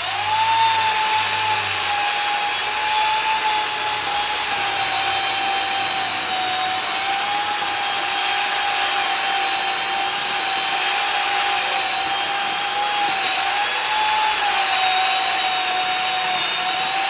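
Electric saw motor running steadily as it cuts through a tree limb, a constant whine that sags slightly in pitch now and then under load.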